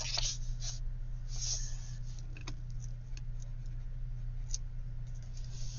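Paper being handled while it is scored and folded: a few scattered light taps and a brief soft rustle, over a steady low hum.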